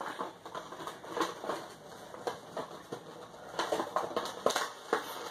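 Hands pulling a boxed collectible figure out of its cardboard box and clear plastic insert: irregular rustles, crinkles and small clicks, the figure held tight in the packaging.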